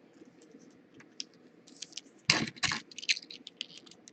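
Trading card packaging and cards being handled: a string of small clicks and scratches, with two louder rustles a little past halfway.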